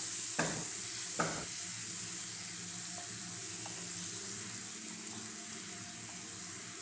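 Ground paste sizzling steadily in hot mustard oil in a frying pan as it is stirred with a spatula, with a couple of scrapes in the first second or so.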